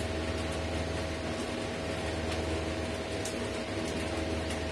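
Steady background hum with a faint constant whine. A few light clicks sound as the laptop's hard disk is handled in its bay.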